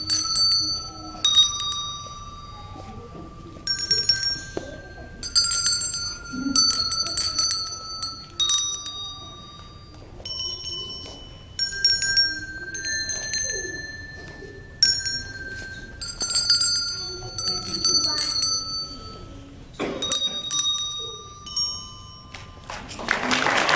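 Children's handbells rung one note at a time to play a slow tune; each strike rings out at its own pitch and fades over a second or two. Applause breaks out right at the end.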